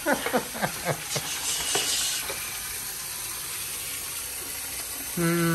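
Bathroom tap running into a metal sink basin, a steady hiss of water. Near the end someone hums one steady note.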